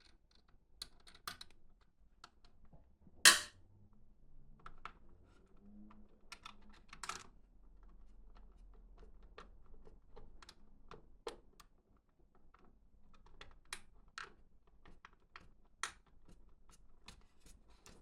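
Scattered light clicks and taps of computer hardware being handled, with one sharp, much louder clack about three seconds in.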